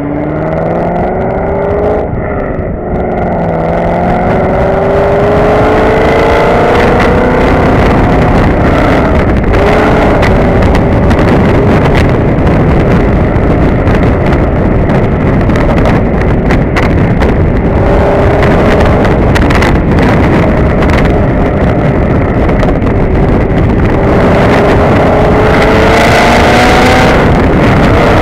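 Chevrolet Camaro's 6.2-litre LS3 V8 through Kooks headers, catted midpipes and a Borla S-Type cat-back exhaust, accelerating with a rising note and a gear change about two seconds in. It then runs on at speed with heavy wind buffeting on the microphone, and the note rises again under another pull near the end.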